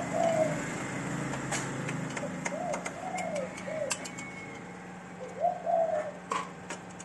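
A dove cooing: short rising-and-falling coos in three groups over a steady low hum. Sharp clicks sound here and there as parts are handled.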